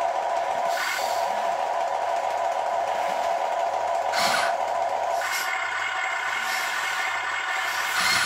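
Electric-driven hydraulic pump of a Huina 580 RC excavator whining steadily as the boom and bucket are worked, with short bursts of hiss about a second in, around four seconds and near the end. The whine shifts in tone about five seconds in.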